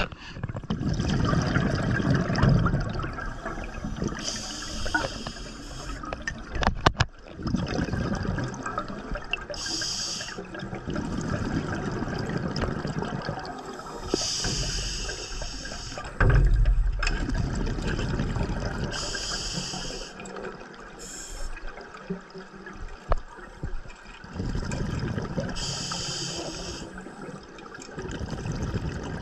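A scuba diver breathing underwater through a regulator. Each inhale is a short hiss, about every five seconds, and each exhale in between is a rush of bubbles.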